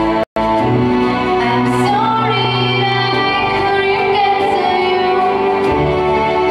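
A girl singing an English-language song into a microphone over backing music. The sound drops out for an instant just after the start.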